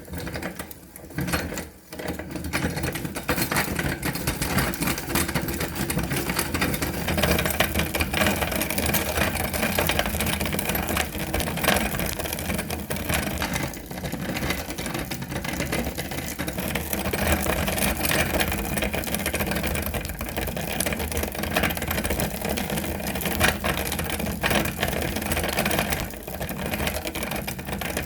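Electric meat grinder running steadily with a motor hum and mechanical whirring, growing louder about two seconds in.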